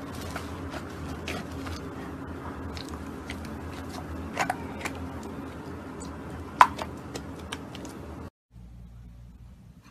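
Slime being squeezed and pressed by hand: scattered small crackles and clicks over a steady low hum, with one sharper pop about six and a half seconds in. The sound cuts off suddenly about eight seconds in, leaving a quieter steady hum.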